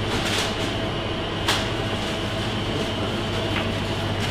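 Steady mechanical hum of a commercial kitchen's running equipment, with a single sharp clink about a second and a half in.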